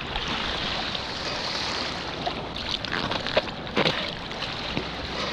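Water splashing and churning as a diver's long fins kick through shallow surf, heard from right at the waterline, with a few sharper splashes about three to four seconds in.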